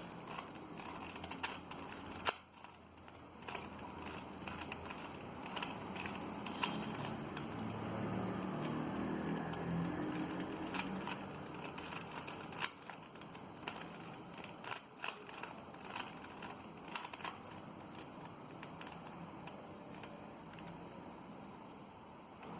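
Plastic Rubik's cube being twisted layer by layer during the last step of a solve: short plastic clicks and clacks at irregular intervals.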